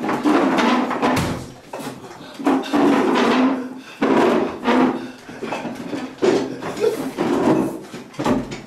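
Wooden chair rattling and knocking irregularly as a man shakes and throws himself about in it.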